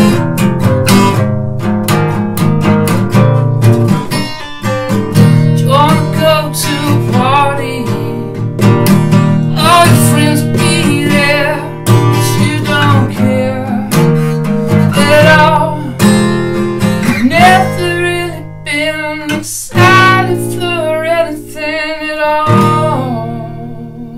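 Acoustic guitar strummed and picked, with a man singing along for most of the passage. Near the end the playing stops on a final chord that rings out and fades.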